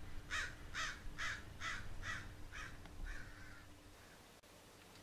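Crow cawing in a quick, even series of about eight caws, two to three a second, that trail off about three and a half seconds in, with a faint steady hum underneath.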